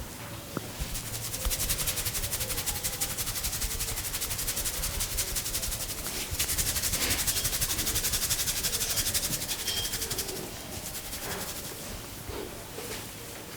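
Hands rapidly rubbing a person's scalp and hair in a head massage: a fast, even, scratchy friction rhythm that eases off after about ten seconds.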